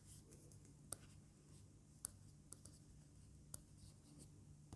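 BOOX stylus nib scratching faintly across the ONYX BOOX Note 3's e-ink screen: short, light strokes about a second apart as fine lines are drawn.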